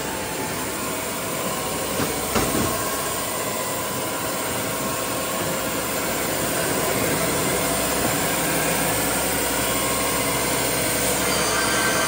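Baker band sawmill cutting through a 22-inch-wide cant, the band blade and sawhead running steadily as the head travels down the log. It grows slowly louder over the second half, with a brief knock about two seconds in.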